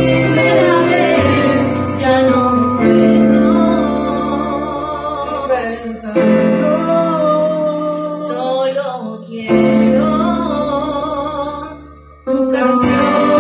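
A woman singing a slow ballad over a piano backing track, with held notes and vibrato; the music fades down about twelve seconds in and comes back at full level just after.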